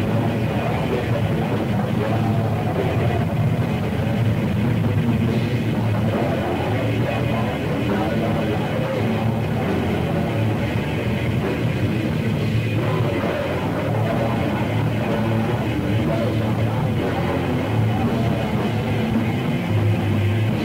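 Raw black metal band playing: distorted guitars and drums in a dense, muffled demo recording with an old-tape sound and little high end. About a second before the end, steady held notes come in.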